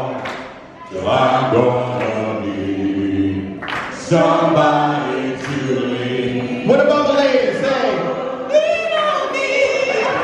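Men's vocal group singing in harmony into microphones, with a low bass note held under the chords.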